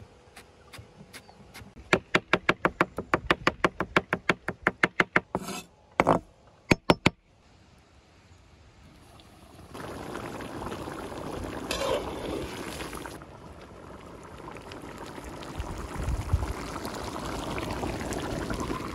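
Knife chopping fresh greens on a wooden cutting board, a fast even run of strokes about six a second, ending in a few heavier knocks. From about ten seconds in, rabbit stew simmering and bubbling in a large open cauldron, a steady hiss.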